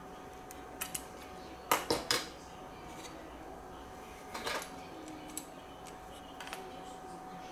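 Hard plastic clicks and knocks from the parts of a snap-fit plastic 767-300 display model being handled and the wing pushed into its fuselage slot. There are a couple of light clicks about a second in, three louder knocks around two seconds, and more scattered clicks later.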